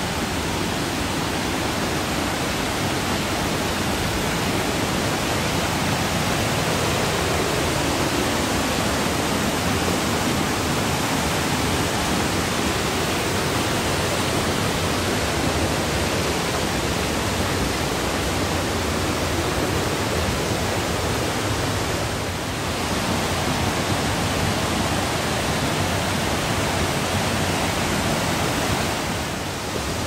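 Mountain stream cascading over rock in a gorge: a steady, loud rush of falling water, dipping briefly twice.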